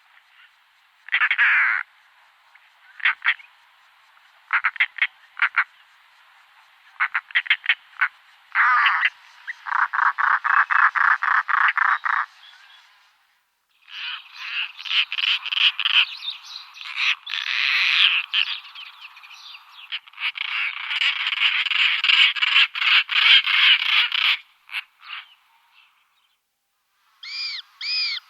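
Frogs calling: short croaks and rattling trills made of rapid pulses, at first in separate bursts and then in dense, overlapping runs. Near the end come two short pitched calls.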